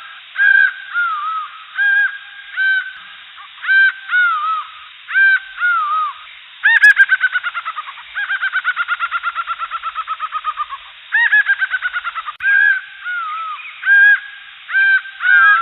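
Jungle birds calling: loud, harsh caw-like calls repeated in short groups, with a long, fast run of rapid calls in the middle.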